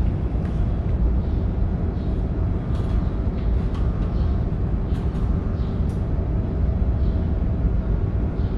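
A steady low rumble, with a few light clicks as a number plate is fastened by hand to a bicycle's rear rack.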